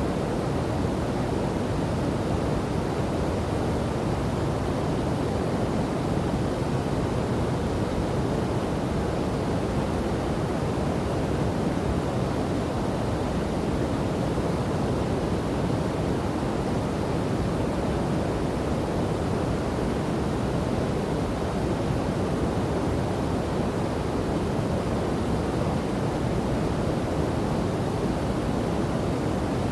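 Rushing water of a waterfall and river, a steady, unbroken rush that is fullest in the low and middle range.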